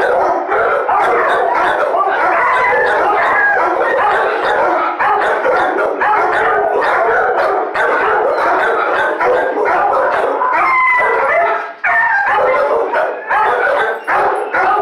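Many dogs barking and howling at once in shelter kennels, a loud, continuous din of overlapping voices with a brief lull about twelve seconds in.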